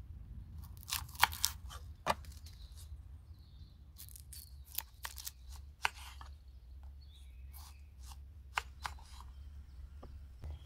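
Knife peeling and cutting an onion on a small wooden board: irregular crisp crackles of the dry onion skin and clicks of the blade, with a low steady rumble underneath.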